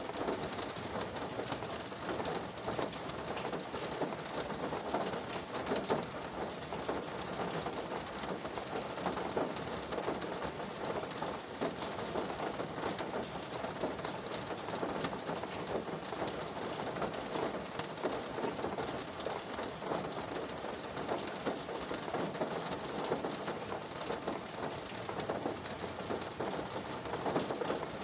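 Rain falling on a car's roof and windows, heard from inside the car: a steady patter of many drops.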